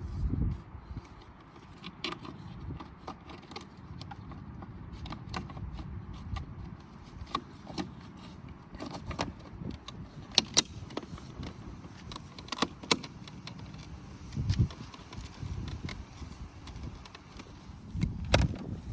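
Scattered sharp plastic clicks and taps of a side-mirror trim cover being handled and fitted back onto the mirror housing, over low rumbling handling noise.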